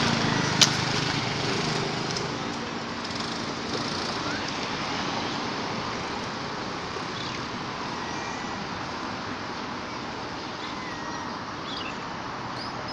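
Road traffic: a passing vehicle's engine hum fades over the first few seconds into a steady traffic hiss. There is one sharp click just under a second in, and a few faint high chirps later on.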